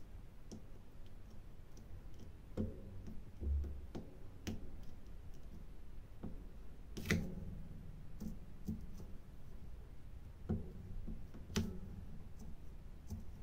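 Small irregular clicks and taps of a drill pen pressing resin diamond-painting drills onto the adhesive canvas. Several louder knocks come through, the loudest about halfway through.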